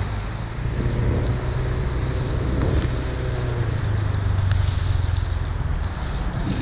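A motor vehicle engine running steadily over an even hiss of rain and water on a flooded street.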